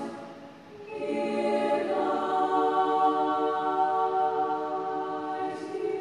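Unaccompanied women's chorus in three parts (SSA) singing sustained chords. A phrase fades away just as it starts, and the next chord enters about a second in and holds.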